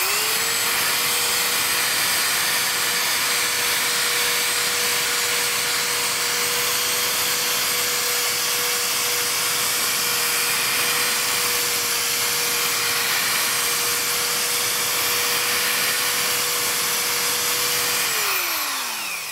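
Corded electric drill spinning a purple foam compounding pad with rubbing compound against a car door's clear coat, buffing out the haze left by sanding. It spins up at the start, then runs at a steady speed with one steady whine over a hiss, and winds down with a falling pitch near the end.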